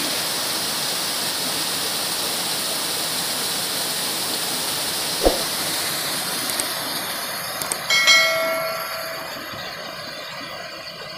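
Steady rush of water pouring out of a tank being emptied, which grows quieter through the second half. A sharp click comes about five seconds in, and a short ringing tone starts sharply about eight seconds in and fades.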